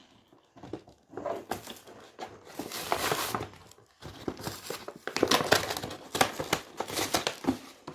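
Toy packaging crinkling and rustling as it is pulled and torn open by hand, in irregular bursts with a short lull midway.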